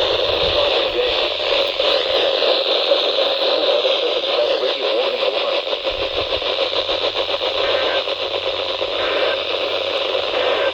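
Steady rush of static from a NOAA Weather Radio receiver tuned to a weak, distant VHF weather station.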